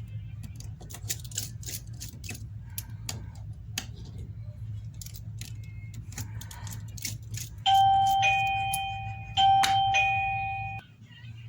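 Light clicks and taps of small tools on the phone, then a two-note ding-dong doorbell chime sounds twice, about a second and a half apart, and cuts off suddenly. A steady low hum runs underneath and stops at the same moment.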